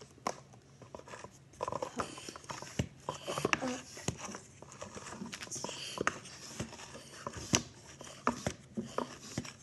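Hard plastic parts of a squishy-maker toy being handled and fitted together: irregular light clicks and knocks of plastic on plastic, with some handling noise between them.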